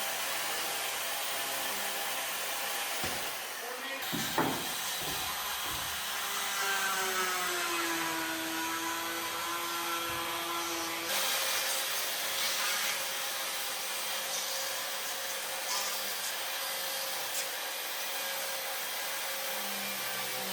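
A power tool running continuously as it works into a wooden log, with a steady grinding noise. Near the middle its motor pitch drops and holds for a few seconds under load.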